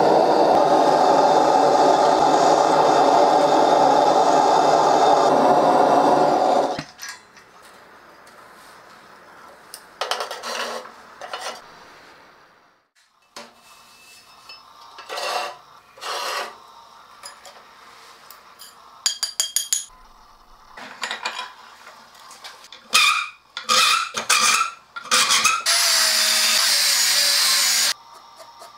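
Gas forge burner running with a steady roar while an old steel file heats inside, then cut off suddenly about seven seconds in. Scattered clicks and knocks follow, and near the end a marker scratches for about two seconds across the file's rough teeth.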